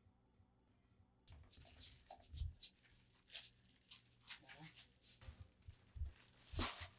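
Seasonings scattered by hand onto salted napa cabbage leaves in a plastic tub: quiet, irregular short rustles and taps with a few duller thuds, starting about a second in.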